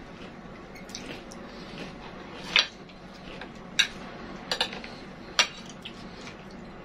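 Metal spoons scraping and clinking against plates of fatteh while eating, with four sharp clinks in the second half, roughly a second apart.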